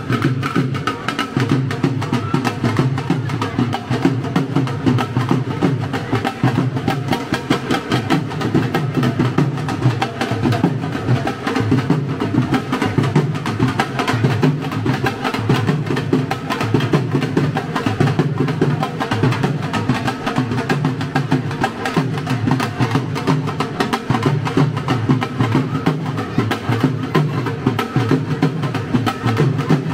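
Dhol, a two-headed barrel drum, beaten with sticks in a continuous festive rhythm: deep booming strokes with sharp stick cracks over them.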